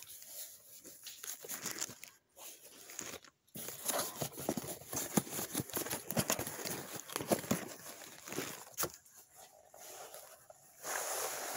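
Cardboard box and plastic packaging being handled and opened: irregular rustling and crinkling with small taps and scrapes, and a steadier rustle near the end.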